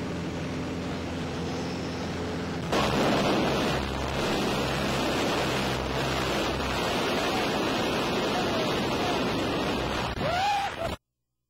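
A light aircraft's engine drones steadily inside the cabin. About three seconds in, the sound jumps to a much louder rush of wind and engine noise through the open jump door. It cuts off suddenly near the end.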